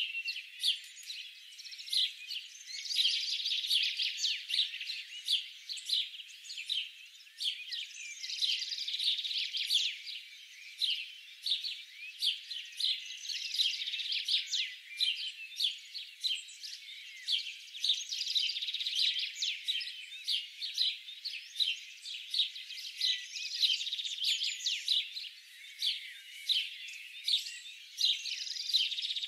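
Many small songbirds chirping and twittering together in a dense, overlapping chorus of quick high calls that never lets up.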